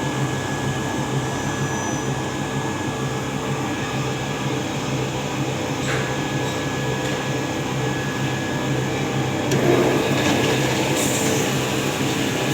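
Steady mechanical hum of a CNC vertical machining centre, with a light click about six seconds in and a brief, louder rush of noise about ten seconds in.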